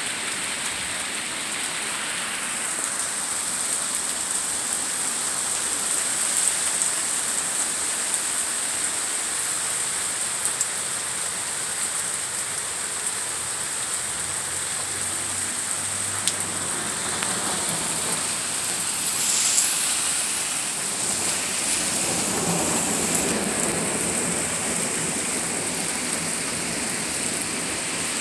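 Steady rain falling, a constant even hiss. About two-thirds of the way through, a lower rumble swells for a couple of seconds.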